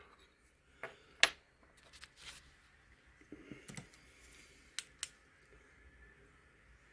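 A few scattered light clicks and taps from a small aluminum part being handled, the sharpest about a second in and two close together near the end.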